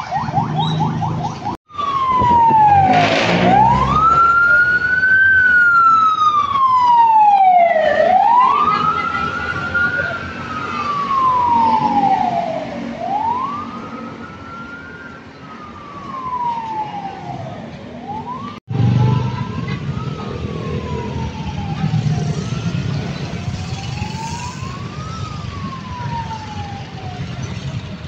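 Emergency vehicle sirens on the wail setting, each rising and falling about every two to three seconds. The audio cuts twice between clips, and in the last part the wail is fainter over traffic and engine rumble.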